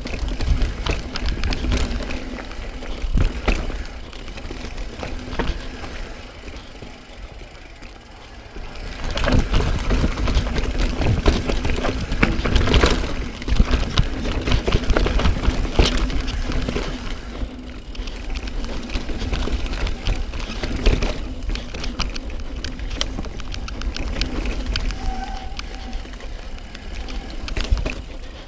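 Mountain bike descending a dirt forest trail: tyres running over dirt and roots with the bike rattling and clattering at each bump, and wind rumbling on the camera microphone. A calmer stretch a few seconds in, then a rougher, louder section from about nine seconds on.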